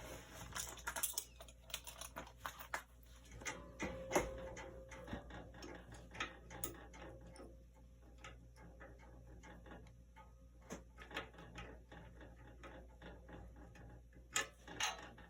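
Irregular light clicks and small metallic rattles from loosening a bandsaw's cam-type blade-tension adjuster by hand, busier in the first few seconds, with a few louder clicks near the end.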